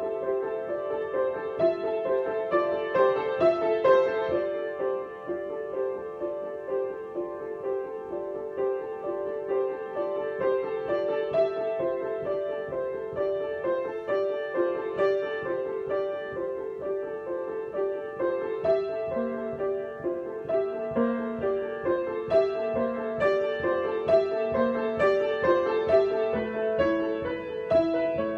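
Piano improvisation: a steady flow of repeated notes in the middle register, with lower notes joining about two-thirds of the way through.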